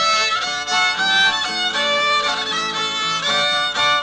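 Background music led by a fiddle, a tune of quickly changing notes.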